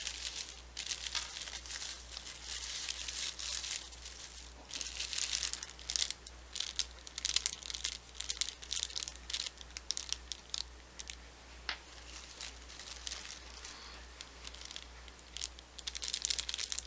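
Paper or plastic packaging rustling and crinkling in the hands as a small gift-wrapped parcel is opened, in irregular scratchy bursts.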